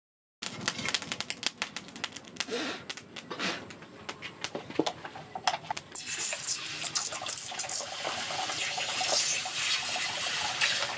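A run of sharp crackles and clicks, then from about six seconds a steady splashing hiss as liquid is poured from a plastic bottle into a bucket of water holding the axe head.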